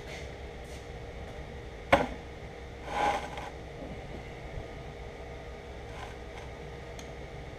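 Steady mechanical hum of a workshop, with one sharp click about two seconds in, a brief rustle about a second later and a couple of faint ticks near the end, from small items being handled at a steel workbench.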